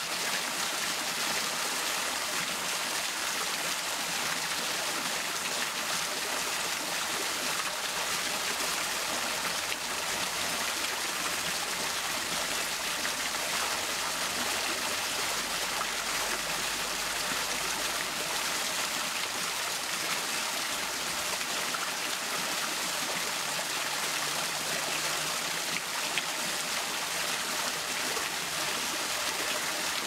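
Thin streams of fountain water trickling and splashing down over rocks: a steady, even rush of falling water.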